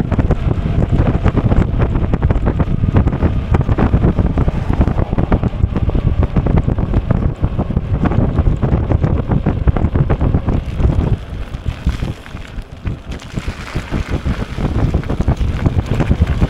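Wind buffeting the microphone of a camera on a moving e-bike: a loud, fluttering rush that eases for about two seconds past the middle, then picks back up.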